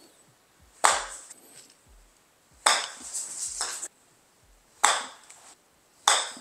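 Golf wedge striking balls off a hitting mat on chip shots: four sharp clicks about two seconds apart.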